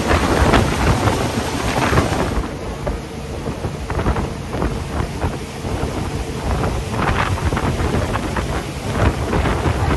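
Wind rumbling and buffeting across the microphone aboard a jet boat under way on a river, in uneven gusts with spattering bursts.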